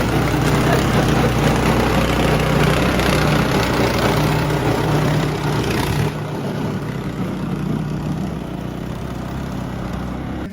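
Steady mechanical running noise with a low hum, like a motor or engine running, that drops in level about six seconds in.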